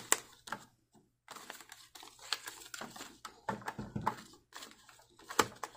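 Light plastic clicks, knocks and rustling as a roll of labels is handled and fitted onto the teal plastic label-roll holder inside a Zebra GK420t printer.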